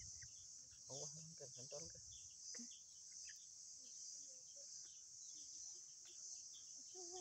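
Faint steady high-pitched chorus of crickets or other insects, with scattered short bird chirps.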